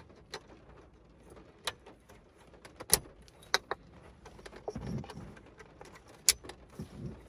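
Cables and small plastic connectors being handled and plugged in by hand: scattered sharp clicks with light rustling and a few soft thuds, as a fibre-optic lead and a power lead are connected to a car's CD changer.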